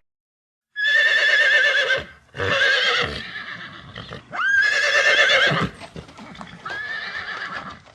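Horse whinnying: four high, wavering neighs one after another, the last one quieter.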